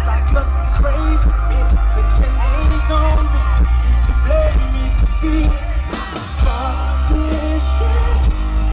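Live pop band playing loud with heavy bass and a steady drum beat while a male singer sings into a microphone. There is a brief dip and a burst of hiss about six seconds in.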